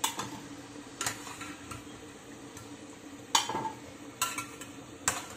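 Steel slotted spoon clinking against the frying pan and a glass dish as fried samosas are lifted out of hot oil, about five clinks with the loudest, briefly ringing, about three and a half seconds in. Oil keeps up a steady low sizzle underneath.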